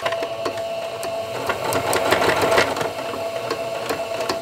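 Domestic electric sewing machine running steadily, a motor hum with rapid needle clicks, starting abruptly and stopping after about four seconds. It is reverse-stitching (backstitching) at the end of a seam through fabric and thermal batting.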